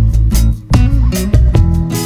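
Background music: a guitar-led instrumental track with a bass line and a steady beat.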